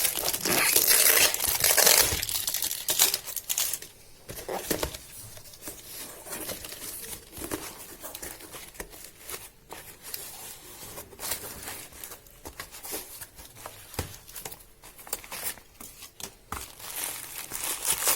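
Bulb packaging being torn open and crumpled by hand, with loud crinkling for the first few seconds, then quieter scattered rustles and clicks, picking up again near the end.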